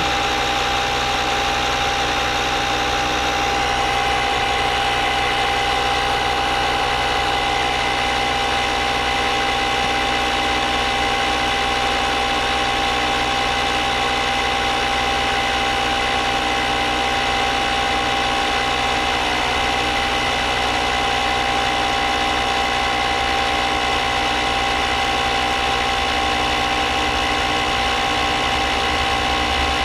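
Portable electric tire inflator's compressor running steadily, pumping air into a flat car tire, with a constant mechanical hum and rattle.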